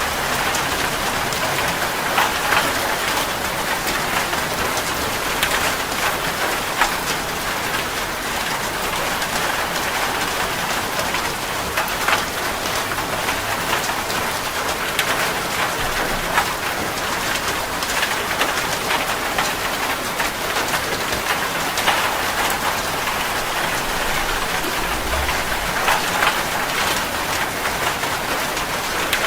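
Steady rain, an even hiss with many individual drops ticking sharply on a surface.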